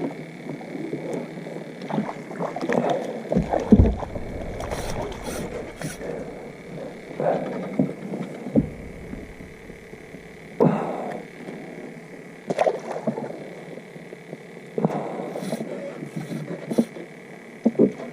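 Irregular knocks, clicks and short rustling bursts of fishing gear being handled in a boat, with a low rumble for several seconds after the start and a faint steady high whine underneath.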